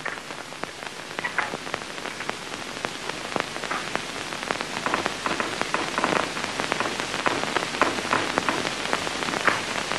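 Geiger counter clicking rapidly and irregularly as it detects radiation from a sample of pitchblende (natural uranium oxide), the sign that the sample is radioactive. The clicks grow a little louder over the first few seconds, over a steady hiss.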